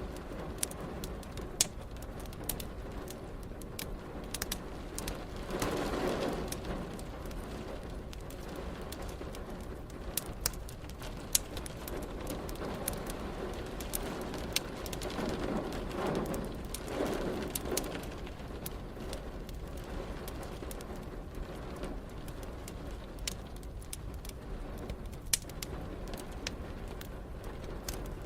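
Fireplace crackling with frequent sharp pops and snaps over a steady hiss of rain. A low swelling sound rises twice, about six seconds in and again in a longer, double swell in the second half.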